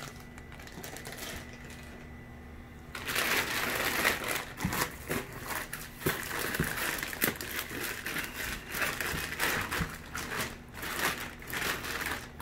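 Clear plastic fish-shipping bags crinkling and rustling as hands rummage through them and pull them out, starting about three seconds in and going on unevenly with many sharp crackles.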